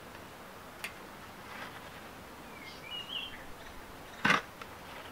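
Hands working soil into a small glazed ceramic bonsai pot: a sharp click near the start and a brief, louder knock about four seconds in. Between them a bird chirps briefly, over light outdoor background noise.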